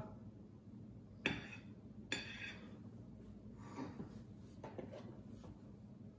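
A metal frosting spatula working frosting on a cake, with a few faint, scattered clinks and taps as it touches the cake stand.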